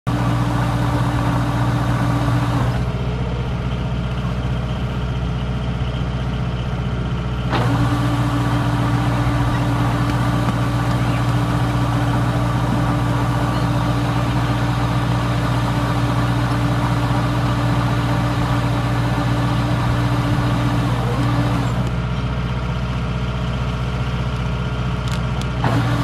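Diesel engine of a Kubota rice combine harvester running steadily under load, a constant low drone with a steady hum. The sound shifts abruptly a few times: the higher part drops away about three seconds in, returns about seven and a half seconds in, and drops again a few seconds before the end.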